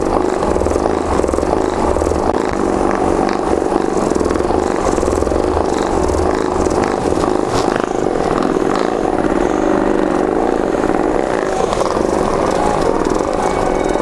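Handheld percussion massage gun running steadily, its motor buzzing and its head rapidly hammering while pressed against the body.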